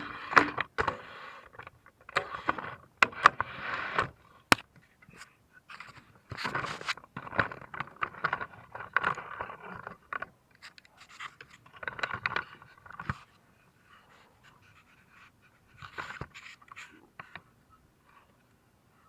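Irregular scraping, clicks and knocks of hand tools and metal parts being handled during engine work, with stretches of noisy, breath-like rasping; it goes much quieter after about 13 seconds.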